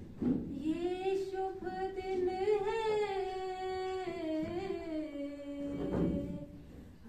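A group of voices singing unaccompanied in unison, a slow melody of long held notes that glide up and down.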